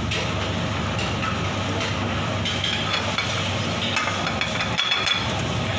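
Chopped onion and garlic sizzling steadily in butter in a stainless steel frying pan over a gas burner turned up high, with the low, steady rush of the gas flame under it.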